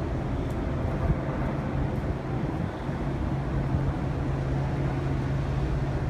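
Steady low mechanical hum with a deep rumble beneath it, even throughout.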